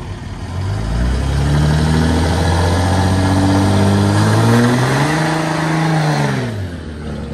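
Pickup truck doing a burnout on wet pavement: the engine revs up hard about a second in and holds high while the rear tyres spin and smoke. The revs drop away near the end.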